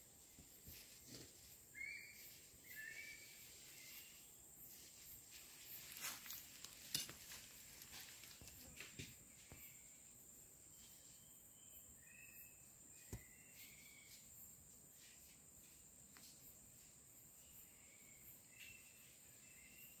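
Faint outdoor insect ambience: a steady high-pitched buzz, with a few short chirps and scattered clicks, the sharpest about seven seconds in.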